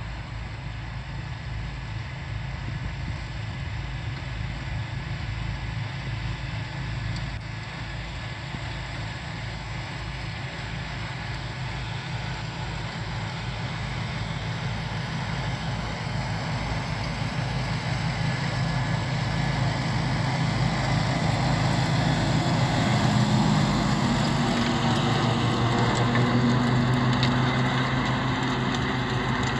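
John Deere 5075 tractor's diesel engine running steadily under load as it pulls a rotavator through dry soil. It grows louder as the tractor comes closer, and its note rises slightly about three-quarters of the way through.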